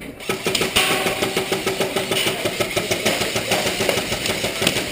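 Airsoft guns firing rapidly, a fast, dense run of clicking shots that starts abruptly and keeps going, with a steady motor whine under it in the first couple of seconds.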